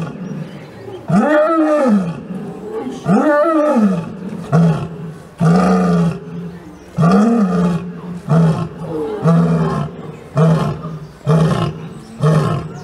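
Lioness roaring: two long moaning roars that rise and then fall in pitch, followed by a run of about ten short grunting calls, roughly one a second, which is the typical close of a lion's roaring bout.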